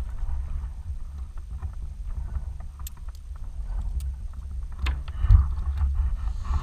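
Wind buffeting an action camera's microphone, a steady low rumble, with a few sharp clicks and a heavier thump a little after five seconds in.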